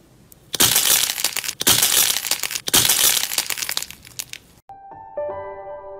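Egg-shaped crunchy slime with a hard silver glitter crust squeezed in the hand, the crust crackling and crunching as it breaks, in three squeezes. Soft piano music comes in near the end.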